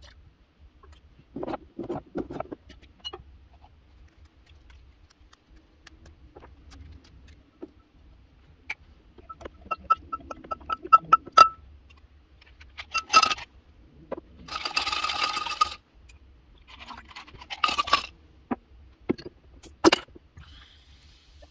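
A mojito being built in a tall glass. First something is poured in, then a stainless-steel muddler clinks against the glass about four times a second as it crushes lime and mint. Then ice cubes clatter into the glass, with a few sharp glass clinks near the end.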